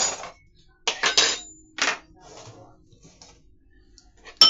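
A utensil scraping around a bowl of chicken salad in a few short strokes as it is mixed, then one sharp, ringing clink against the bowl near the end.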